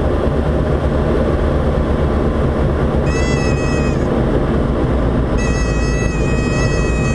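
Diamond DA40 light aircraft's engine and propeller droning at low power, heard from inside the cockpit. A high buzzing warning tone sounds for about a second around three seconds in, then comes back about five and a half seconds in and holds. It is typical of the stall warning going off as the plane flares and touches down near stall speed.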